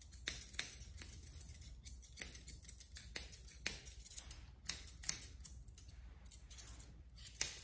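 Grooming shears snipping through a Goldendoodle's facial hair, in crisp irregular snips about one or two a second, louder near the end.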